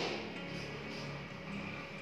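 Background music with a guitar, opened by a short swish at the start that fades within about half a second: a slide-transition sound effect.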